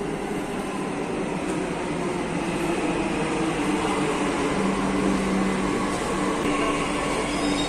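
Delhi Metro train pulling into an underground station platform: a steady rumble with a low hum, growing slowly louder as the carriages run past and slow down.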